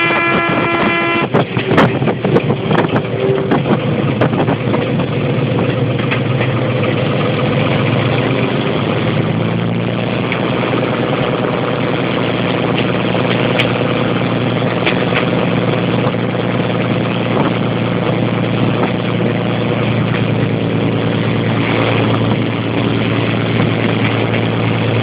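Narrow-gauge diesel train running, heard from aboard: a steady drone of engine and wheels on the rails. A horn sounds at the very start and cuts off about a second in, with a few sharp knocks over the next few seconds, and a low, steady engine note comes through more strongly from about nine seconds in.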